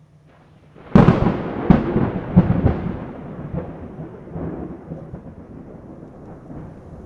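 Thunder: a sudden loud crack about a second in, a few more cracks over the next second and a half, then a rumble that slowly fades away.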